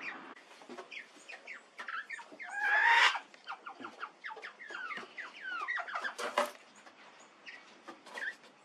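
Spurfowl calling in a series of short, falling notes, with one louder harsh burst about three seconds in. Sharp taps, such as claws on wooden boards, come in between.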